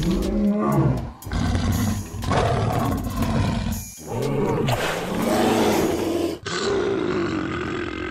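Dinosaur roar sound effects dubbed over a toy raptor: about five loud roars in a row with short breaks between them, some sliding down in pitch at the end.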